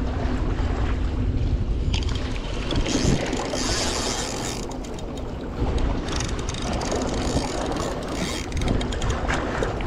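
Wind buffeting the microphone over waves washing against jetty rocks, with the whirring and clicking of a large spinning reel being cranked. A brighter hiss rises briefly a few seconds in.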